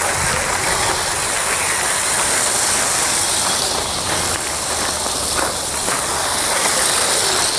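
Two battery-powered Lego toy trains running along a wooden track, a steady hiss of their motors and wheels that cuts off suddenly at the end.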